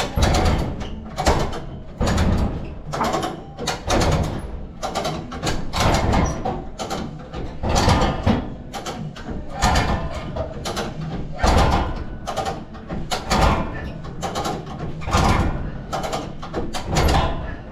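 Hand winch being worked to hoist a load, ratcheting in repeated strokes about once every second or so as the cable winds on.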